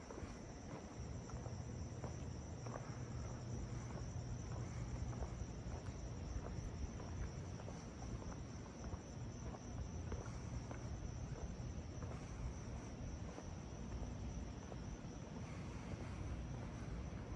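Crickets chirring in a steady, high trill over a low rumble, with faint ticks of footsteps.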